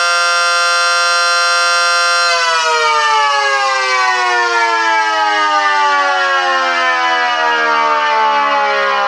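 Miniature ACA Screamer dual-tone siren sounding a steady two-note chord, then, about two seconds in, winding down with its pitch falling steadily.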